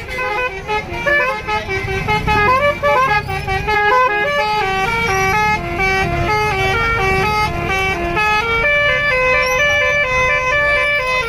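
Indonesian bus 'telolet' horn, a bank of multi-tone air horns, playing a quick tune of short stepped notes, often several sounding together, with the notes held longer near the end. A low engine and traffic rumble runs underneath.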